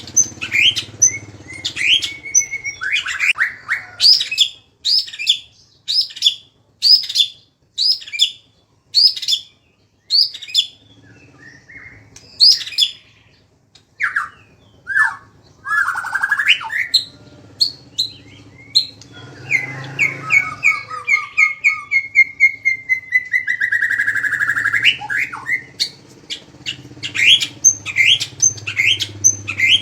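A songbird singing loud, sharp repeated notes about two a second, breaking off briefly, then a fast run of rippling notes before the sharp notes return.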